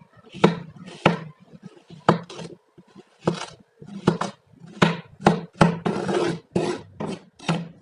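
A knife cutting through kinetic sand: about a dozen short gritty slicing strokes, several with a sharp tap as the blade meets the tray.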